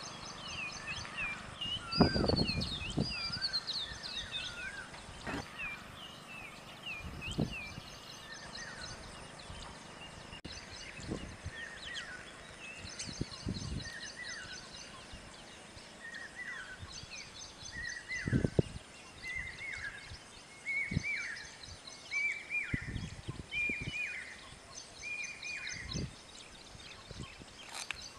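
Small songbirds chirping and singing: quick high chirps in the first few seconds, then one bird repeating a short whistled note about once a second, with a fainter high trill behind it. Occasional low thumps.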